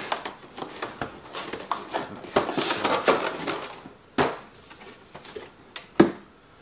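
Cardboard box and plastic packaging rustling and scraping as the inner tray is slid out of the box, then two sharp knocks on the desk, the louder near the end as the box is set down.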